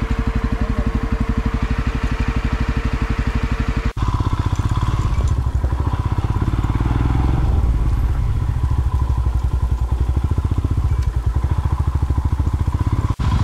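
Single-cylinder motorcycle engine running, its firing pulses steady and even, with the sound briefly cut about four seconds in and again near the end.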